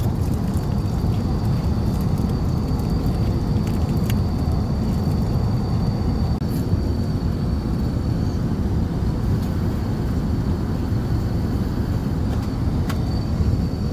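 Airliner cabin noise in flight: a steady, even low rumble, with a faint steady high whine and a few light clicks.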